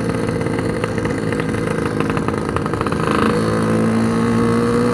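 Yamaha RX-King's 135cc two-stroke single-cylinder engine running on the move; its exhaust note changes pitch and gets a little louder about three seconds in, as the bike pulls.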